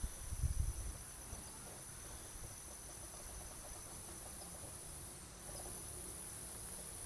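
Crickets or other insects chirping in a steady high-pitched drone. A few low thumps in the first second are the loudest part.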